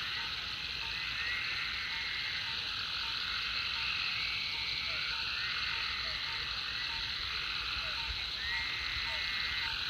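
A chorus of many frogs calling at a pond after heavy rain. Their calls blend into a steady dense din, with repeated short notes and a few longer trills standing out, one about a second in, one in the middle and one near the end.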